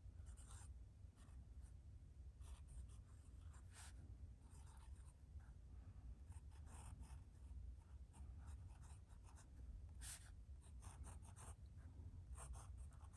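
Fine-point steel nib of a budget fountain pen scratching faintly across paper in short, irregular strokes of handwriting. The owner finds the pen a little scratchy on the paper.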